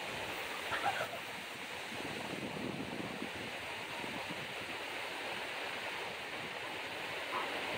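Steady outdoor background hiss, like wind, with no distinct events.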